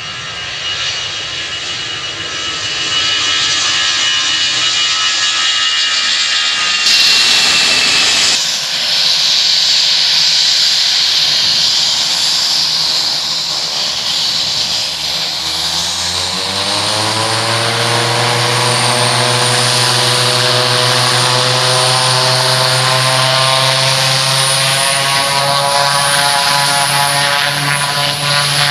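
Engines of a twin-engine DC-3-type propeller airliner running loud and steady, then rising in pitch over about two seconds past the middle and holding there as the power comes up for the takeoff roll, with a thin high whine above the drone.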